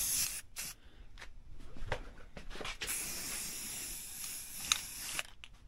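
Aerosol spray-paint can spraying: a few short spurts of hiss, then one longer spray of about two seconds starting around three seconds in.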